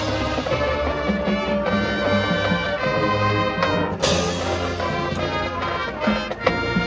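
High school marching band playing its field show: sustained brass chords from trumpets and trombones over low drums, with a cymbal crash about four seconds in.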